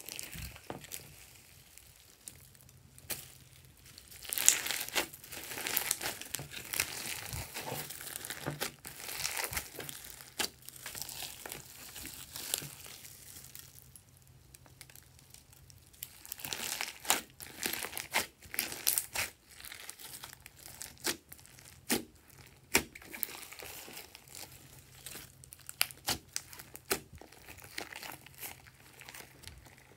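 Hands squishing and kneading glossy slime mixed with foam beads, sprinkles and glitter: irregular crackling and clicking that comes in uneven bursts.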